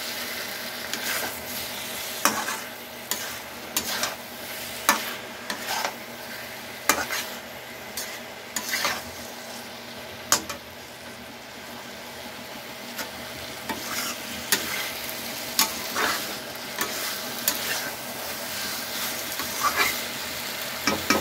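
Steel spatula stirring and scraping elephant foot yam and drumstick pieces through masala in a hot kadai: a steady frying sizzle under irregular sharp metal clicks and scrapes against the pan.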